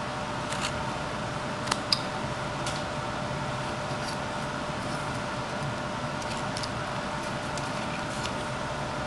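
Whittling knife cutting shavings from a small wooden horse carving: a few faint clicks and scrapes of the blade, two of them clearer about two seconds in, over a steady background hum.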